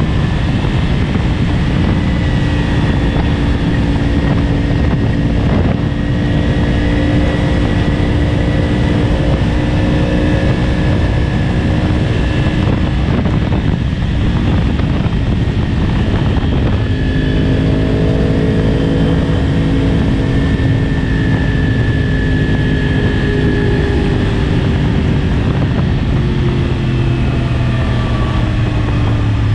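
2014 Yamaha R1's crossplane inline-four engine running at riding speed under steady wind rush on the microphone. Through the second half the engine note slowly sinks in pitch as the revs come down.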